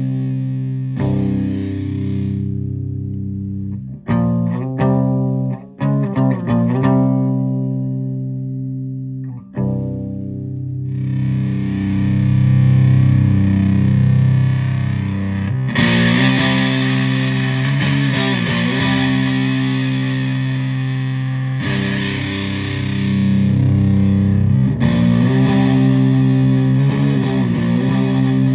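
Electric guitar through a Russian Big Muff fuzz with blend and octave into a Fender Twin Reverb-style amp, tuned to Drop C: heavy fuzzed chords held and left ringing. About four seconds in come a few short choppy stabs, and from about halfway the tone turns brighter and fuller.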